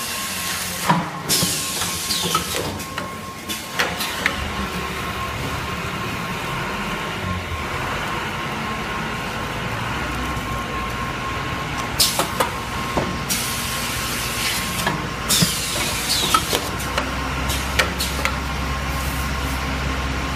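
Semi-automatic toilet paper roll packing machine running, with a steady hum and a faint high tone, scattered clicks and knocks from its mechanism, and several short hisses of air from its pneumatic cylinders. A low hum comes up about four seconds in and again near the end.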